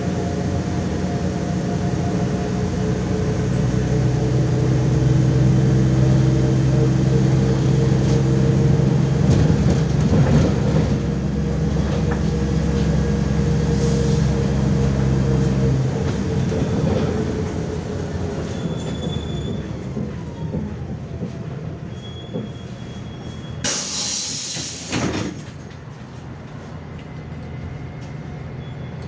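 The interior of a MAZ-105 articulated city bus under way. The diesel engine and drivetrain run with a steady drone that builds over the first several seconds, then falls away a little past halfway as the engine comes off load. About two-thirds through comes a loud hiss of compressed air from the bus's pneumatic system.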